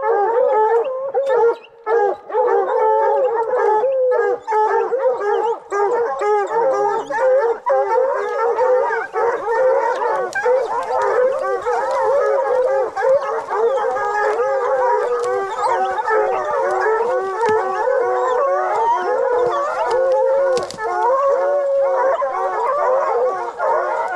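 A pack of bear-hunting hounds baying and howling nonstop, many dogs' calls overlapping, rising and falling in pitch.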